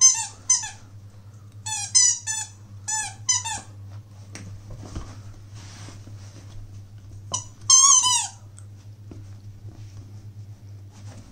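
Squeaky toy muffin squeaking as a puppy chews it. There is a quick run of about eight short squeaks, each falling in pitch, in the first few seconds, then after a pause two more about two-thirds of the way in, the last one longer.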